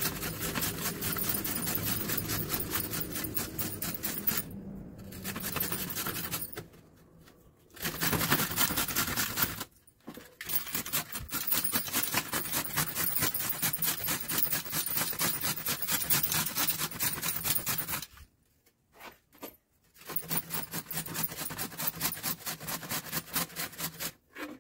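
A carrot rubbed quickly up and down a stainless-steel box grater: a fast, even run of rasping scrapes, shredding the carrot, broken by a few short pauses.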